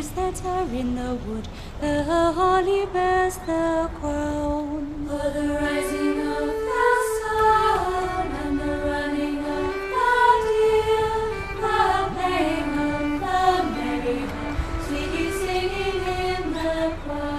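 Background music: a slow melody sung by a female voice, with long held and gliding notes in a chant-like style.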